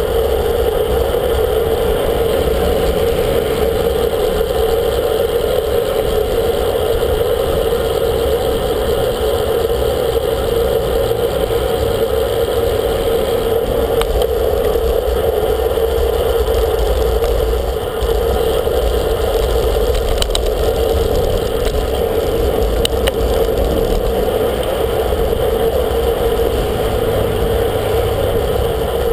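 Steady wind and road noise on a camera mounted on a road bicycle moving at speed: a constant rushing drone with a low rumble, and a few faint ticks in the second half.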